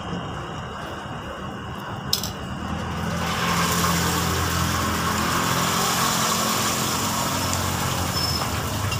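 Steady low engine hum, joined about three seconds in by a loud, even rushing hiss that holds on.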